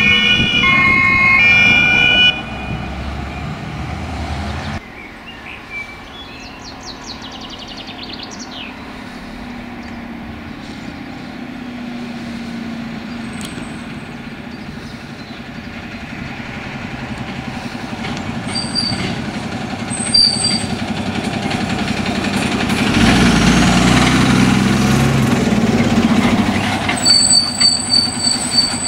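Two-tone emergency siren alternating between its two pitches for about the first two seconds, with a heavy truck engine under it. Then comes a fire engine's diesel engine, growing louder as it approaches and passes, loudest a few seconds before the end. Short high beeps come twice, the second time near the end.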